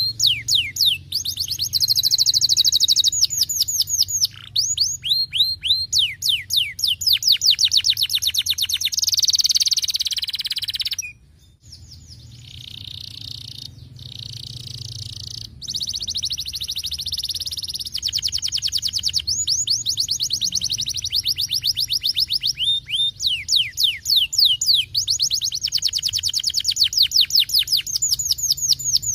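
Canary singing: long fast trills of rapidly repeated falling high notes alternating with smoother rolling passages. The song breaks off sharply for a moment about a third of the way in and resumes softer before the fast trills return, over a steady low hum.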